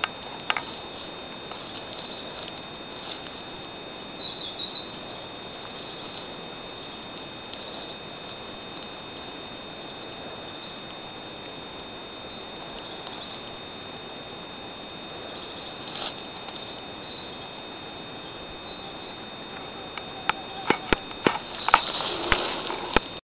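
Forest ambience: small birds chirping with short, high, repeated calls over a steady hiss and a faint steady high whine. Near the end comes a run of clicks and knocks from the camera being handled and moved.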